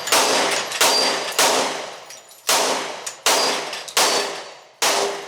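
Pistol fired seven times in a slow, uneven string, about one shot a second, each crack dying away quickly, some leaving a brief ringing tone.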